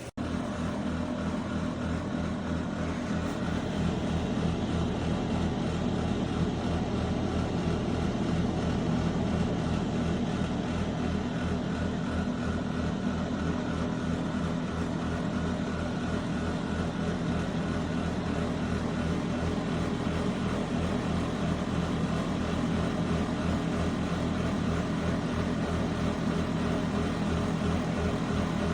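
COSORI 12-in-1 air fryer toaster oven running with its convection fan on, a loud steady hum that comes on suddenly right at the start.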